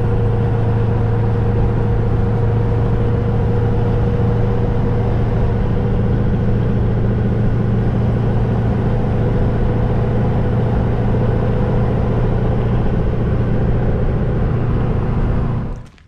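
Chevy Kodiak C4500's 6.6 Duramax V8 turbodiesel under way, with road noise: a steady low engine drone and a fainter higher hum, even throughout, with no revving. It cuts off suddenly near the end.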